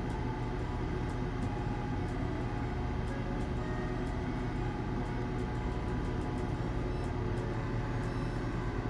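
Washing machine running mid-cycle: a steady low hum and rumble that does not change.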